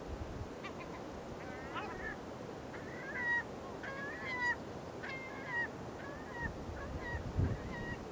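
Yellow-legged gulls calling: a run of about a dozen short, clipped calls, some bending in pitch, starting about half a second in, with low wind rumble on the microphone.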